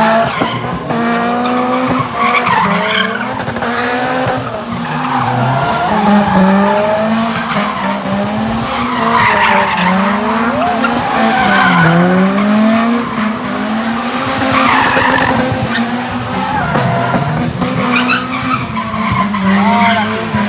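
Car drifting in circles in tyre smoke: the engine revs rise and fall over and over while the rear tyres screech.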